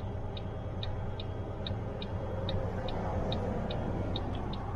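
Mack semi-truck diesel engine (MP8) running steadily while parked through a DPF clean-out (forced regeneration), with a light, regular ticking about twice a second.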